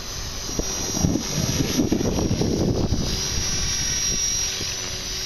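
Align T-Rex 450 Pro V2 electric RC helicopter flying low, its rotor noise joined by a steady high whine from about three seconds in. The noise is put down to the main blade tracking being off after a blade strike bent the links.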